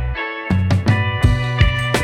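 Background music with drums, bass and guitar, a short break in the beat just after the start before the drums come back in.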